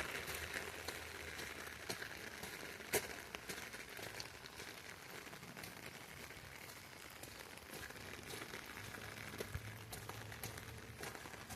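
Heavy rain falling: a steady hiss with scattered sharp drip ticks, one louder about three seconds in.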